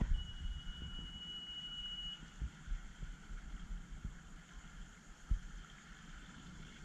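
A jet ski's engine running slowly as it comes closer, under low wind rumble on the microphone with a few soft knocks. A steady high-pitched tone sounds for about two seconds at the start.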